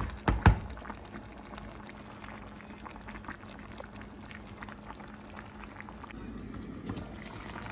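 A pot of thick vegetable soup simmering on the stove, with a steady bubbling and popping as the water given off by the water leaf cooks down and the soup nears done. A couple of sharp knocks come in the first half-second.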